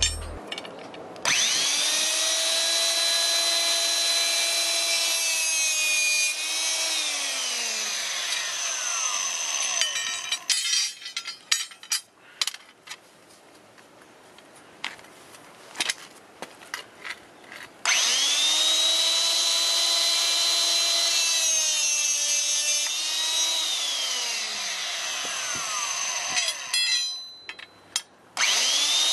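Electric hydraulic rebar cutter's motor starting with a steady whine, dropping in pitch after a few seconds and winding down, which happens twice with a third start near the end. Between the two runs there are scattered knocks and clinks of metal being handled.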